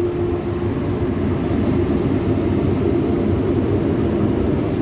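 Air-conditioning unit with a Copeland Scroll compressor running: a loud, steady mechanical rumble.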